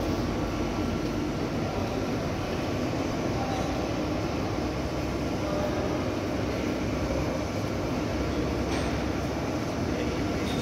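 Steady industrial hum and rumble of machinery in a factory hall, running at an even level without sudden knocks.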